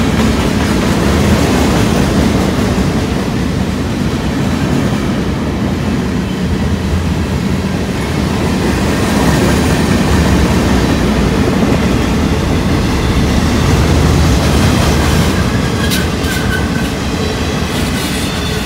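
Freight train boxcars rolling past close by, giving a steady heavy rumble of steel wheels on rail. A few brief high squeaks and clicks come near the end.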